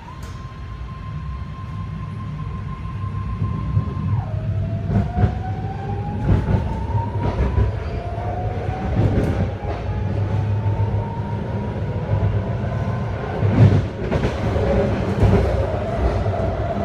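BART train's Adtranz AC traction motors whining as it accelerates from a standstill to about 45 mph: a steady high whine, a sudden drop in pitch about four seconds in, then a slow rising whine that steps down and climbs again. Under it a low rumble grows louder, with scattered sharp clicks and knocks from the wheels.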